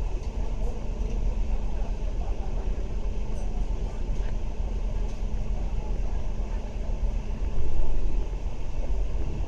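Steady low engine and road rumble of a city bus heard from inside while it drives, with a brief louder swell about eight seconds in.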